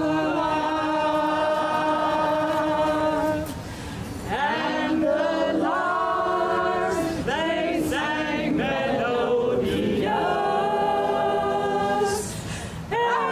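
A small group of men and women singing together a cappella: a long held chord, a short break about three and a half seconds in, then a quicker run of short sung notes, and held notes again near the end.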